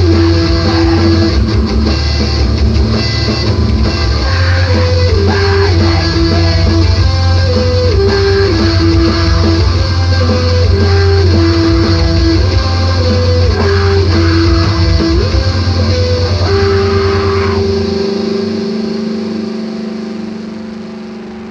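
Screamo band recording: a guitar repeats a short falling melodic figure about every two seconds over heavy bass. About 18 seconds in the bass drops out, leaving one held note ringing as the music fades.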